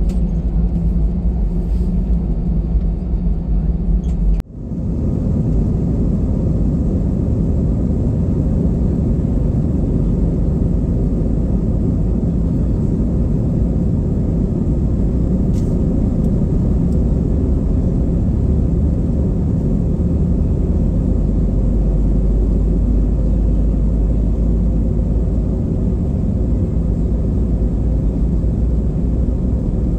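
Steady low rumble of an Airbus A320-200 heard from inside the cabin, its jet engines running as the aircraft rolls along the ground. The sound cuts out briefly about four seconds in.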